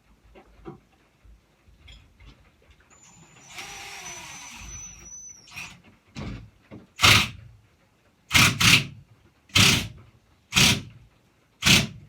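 A cordless drill/driver runs for about two seconds, its motor whine rising and falling as a screw is driven into wood. Then come six loud, short, sharp strikes about a second apart.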